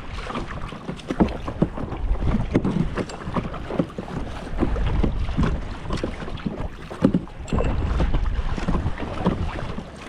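Kayak being paddled: water splashing and dripping off the paddle, with scattered small knocks. Wind rumbles on the microphone throughout.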